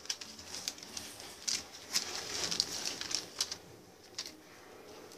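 Plastic and foil sachet packaging crinkling and rustling as it is handled and opened, a run of sharp crackles that is busiest about halfway through.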